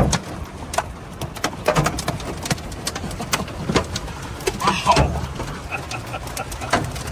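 Hail pounding a vehicle: a dense, irregular clatter of sharp knocks over a steady low rumble.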